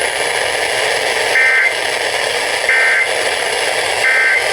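Three short bursts of Emergency Alert System SAME data tones, about a second and a quarter apart: the end-of-message code that closes a National Weather Service warning. They sound over a steady radio static hiss.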